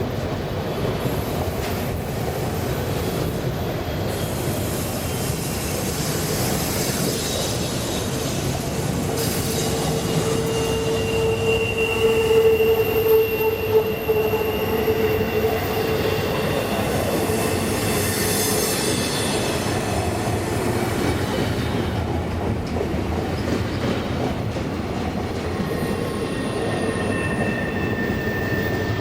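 Freight train cars rolling past over a steady rumble, their steel wheels squealing against the rail in drawn-out tones that rise about a third of the way in and fade, with another squeal near the end.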